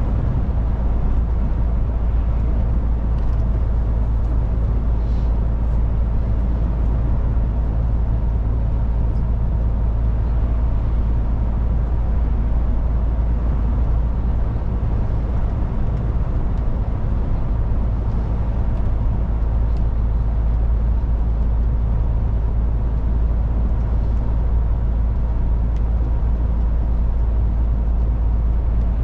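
MAN truck's diesel engine running steadily on the move, a deep even hum with tyre and road noise.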